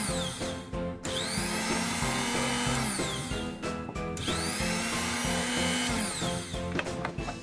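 BG-5158 benchtop drill's motor switched on and off by a lever-operated microswitch. Twice its whine climbs as it spins up, holds, then falls away as it runs down, with background music underneath.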